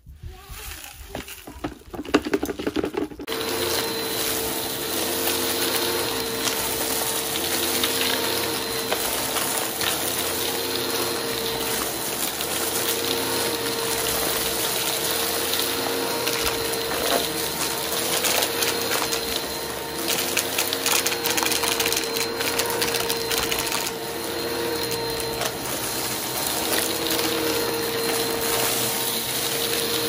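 A vacuum cleaner motor starts about three seconds in after a few clicks and handling noises, then runs steadily with a constant whine. Its lower hum shifts slightly in places as the vacuum is moved.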